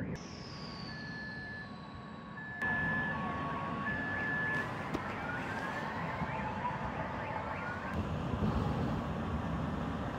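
Two-tone emergency-vehicle siren alternating high and low over a steady rush of city noise; it cuts off sharply about two and a half seconds in, leaving the noise with a few faint rising wails.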